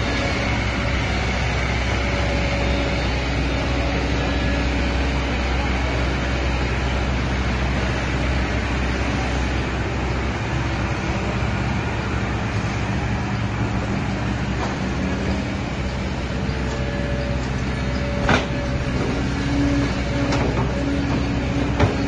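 Kobelco SK210 hydraulic excavator's diesel engine running steadily under work as it digs and swings its bucket. A single sharp knock comes late on, and a few more right at the end.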